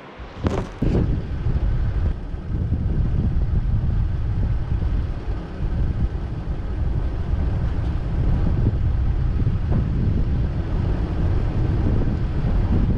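A vehicle driving along a rough dirt track, a steady low rumble mixed with wind buffeting the microphone. A few sharp knocks about half a second in, as the camera is handled and set running.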